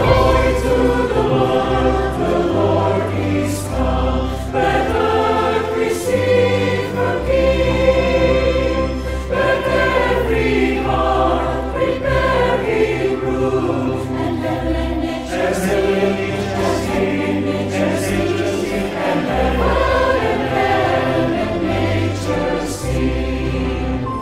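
Mixed choir singing a Christmas carol medley over an instrumental ensemble, with sustained bass notes beneath the voices.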